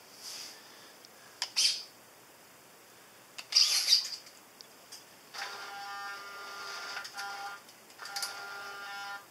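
Electric motors of a small tank-tracked robot with a servo-driven robot arm whirring as the arm swings out and lowers and the robot edges forward. Two short noisy bursts come about a second and a half and three and a half seconds in, then a steady pitched whine runs from about five and a half seconds in, with a brief break near seven and a half seconds.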